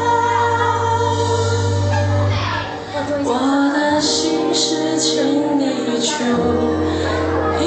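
Closing bars of a Mandarin pop ballad played from a backing track over a PA, with long held chords and the singer's voice through a handheld microphone, as the song comes to its end.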